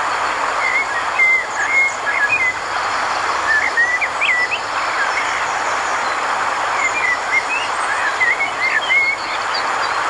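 Small birds chirping in short rising and falling calls, in clusters, over a steady rushing noise.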